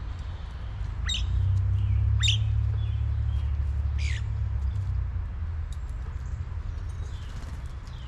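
Three short, sharp bird calls in the first half, over a steady low rumble that swells and then eases off.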